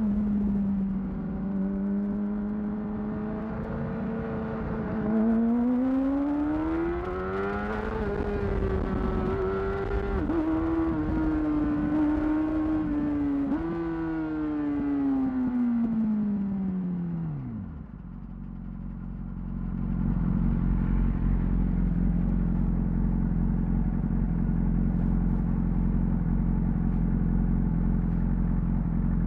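2008 Yamaha R6 inline-four through a Termignoni exhaust, ridden. It holds steady revs, then pulls up in revs with a couple of quick steps like gear changes, and the revs fall away as it slows. For the last ten seconds or so it settles to a steady low idle.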